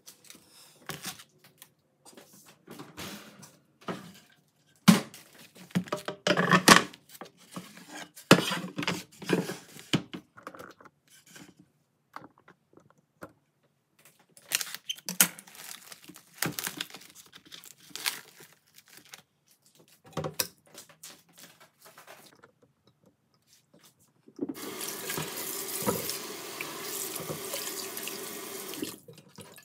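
Scattered knocks, clicks and rustles of kitchen handling at the sink and cutting board, then near the end about five seconds of steady water running and splashing in the sink as raw beef is rinsed in a pot.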